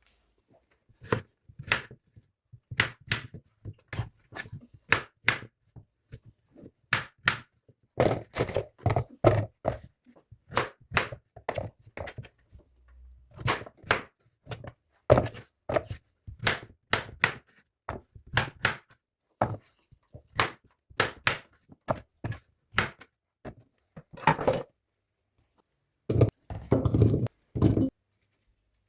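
Knife chopping on a cutting board: a long run of separate knocks, roughly one or two a second, with quicker runs of strokes now and then.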